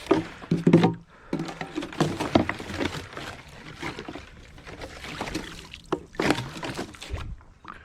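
Frosty duck decoys being dipped and swished in shallow water: irregular splashing and sloshing with light knocks.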